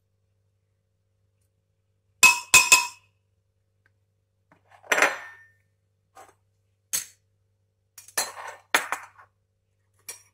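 A metal spoon clinking against a plastic jug as a spoonful of flour is tipped into the baghrir batter: a quick cluster of three sharp clinks about two seconds in, a short scrape about halfway, then a few scattered taps.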